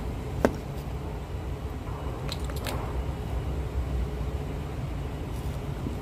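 Kitchen knife cutting through raw chicken at a wing joint: wet squishing of the flesh, a sharp click about half a second in and a few fainter clicks around the middle, over a steady low hum.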